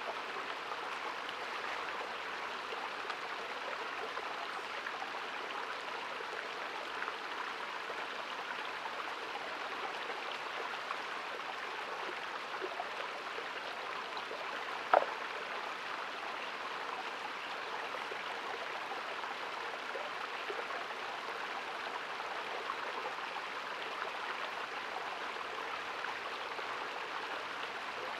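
Shallow woodland creek running steadily over a stony bed, with one brief sharp sound about halfway through.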